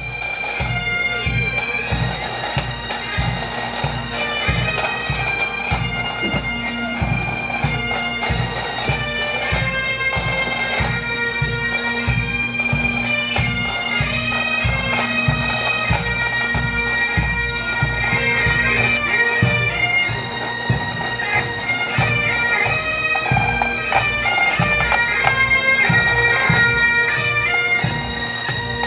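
Pipe band playing: Highland bagpipes sounding their steady drones under a melody, over a regular drum beat.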